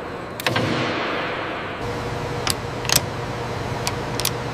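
Sharp metallic clicks of hand tools over a steady workshop hum. There is one clank about half a second in, then a few more clicks spaced over the last few seconds, the latest as a torque wrench is turned.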